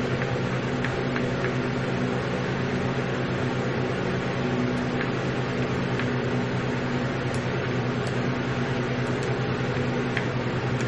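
Steady hum of a running electric motor, such as a fan, with a low electrical buzz beneath it. Over it come a few faint, irregular light ticks from a small stick stirring photo emulsion and sensitizer in a pot.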